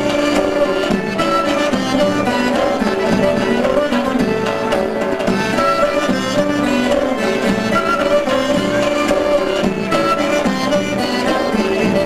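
Turkish Black Sea (Karadeniz) folk dance music playing loudly and steadily, carried by a bowed fiddle melody.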